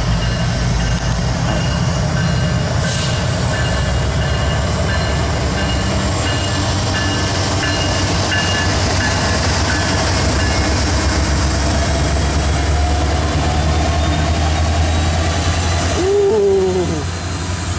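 Norfolk Southern diesel locomotives of an intermodal freight train passing at close range: a steady, loud, deep engine rumble. It swells as the second locomotive goes by near the end, then eases.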